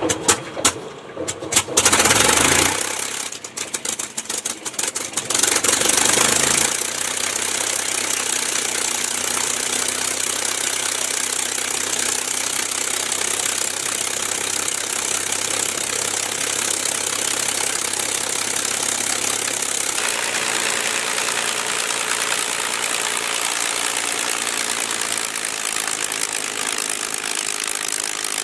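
P-51 Mustang's Packard Merlin V12 aero engine starting: irregular coughing and popping for the first six or seven seconds, then it catches and settles into a steady, even idle. About twenty seconds in, the engine's tone changes.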